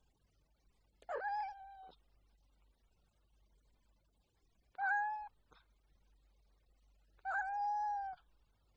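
A domestic cat meowing three times, a few seconds apart, each meow held at a fairly even pitch; the last is the longest.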